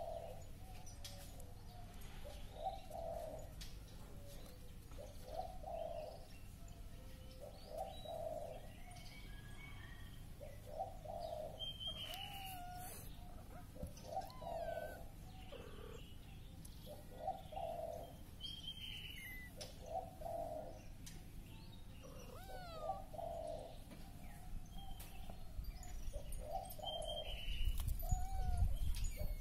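Birds calling outdoors: a soft, low call repeated every second or two, with occasional short high chirps above it. A low rumble comes in near the end.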